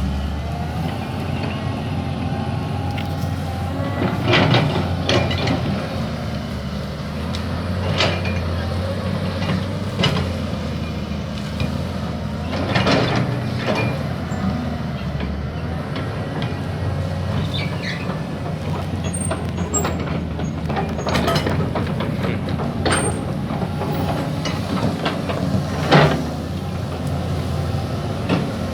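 Caterpillar 320D excavator's diesel engine running steadily while clearing land, with sharp knocks and scrapes every few seconds from the machine's digging work; the loudest comes near the end.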